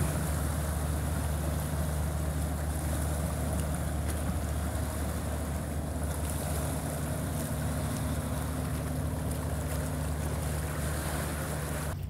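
A boat's engine running steadily with a low, even hum, under wind and water noise.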